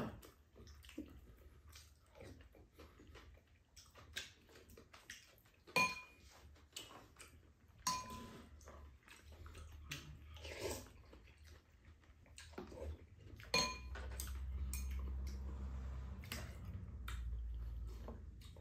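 Quiet mealtime sounds: wooden spoons and chopsticks tapping and scraping ceramic bowls and a pan in scattered clicks and clinks. A low rumble comes in about two-thirds of the way through.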